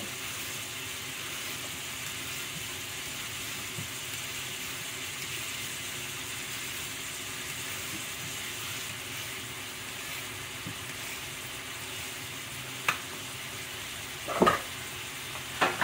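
Sliced onions sizzling steadily in oil in a frying pan on medium heat. A few sharp knocks come near the end.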